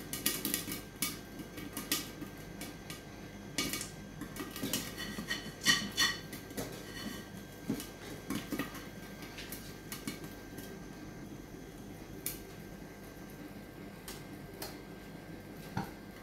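Popcorn popping in a covered pan, kernels clicking against the glass lid in quick irregular pops that thin out after about half way to occasional single pops, a sign that the batch is nearly done.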